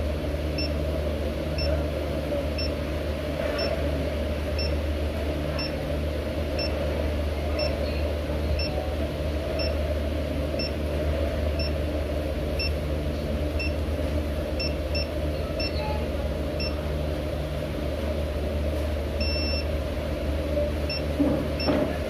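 Xiaomi Mi electric scooter beeping: a short high beep about once a second, with one longer beep near the end. This is the warning beep a scooter gives until it is activated in the Mi Home app. A steady low hum runs beneath the beeps.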